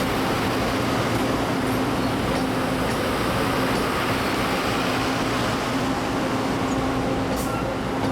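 A vehicle running steadily: a continuous rumble with a low, even hum.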